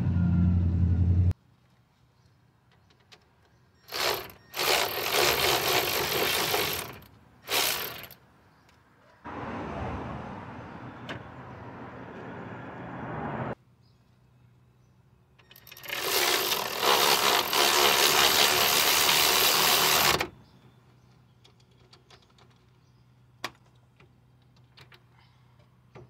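Impact wrench with a 17 mm socket running in several loud bursts of one to four seconds, driving in the bolts that hold a new front wheel hub bearing assembly.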